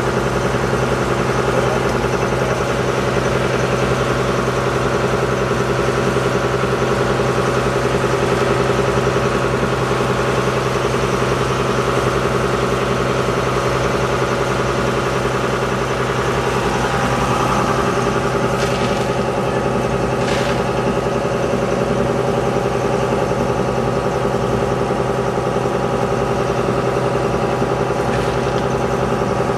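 Shrimp boat's engine running steadily at a constant pitch.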